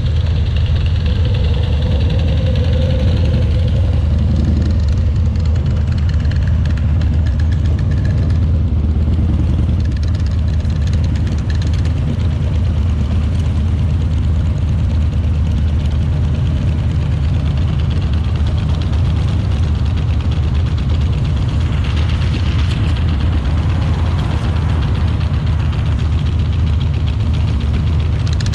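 Harley-Davidson V-twin motorcycle engine running steadily with a deep, even rumble.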